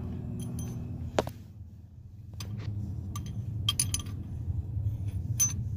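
Metal pushrods being dropped one by one into the pushrod holes of a GM 5.3 V8 cylinder head, giving light metallic clinks. There is one sharp clink about a second in and a quick run of them in the second half, over a low steady hum.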